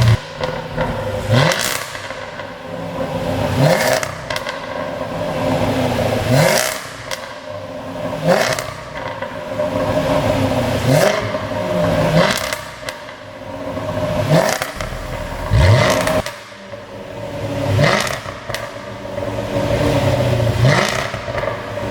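Jaguar F-Type SVR's supercharged V8 blipped repeatedly, about every two seconds, with a burst of exhaust pops and crackles as each rev falls away: the overrun pops of a pop-and-crackle exhaust tune.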